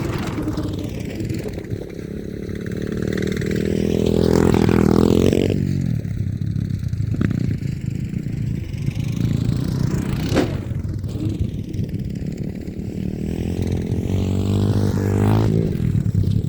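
Small off-road vehicle engine running, revving up and easing off as it goes by twice, about four seconds in and again near the end, with a sharp click or two in between.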